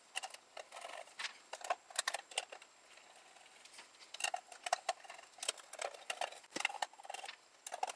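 Small screws being fitted and driven into a machined aluminium plate: irregular light metallic clicks and scrapes.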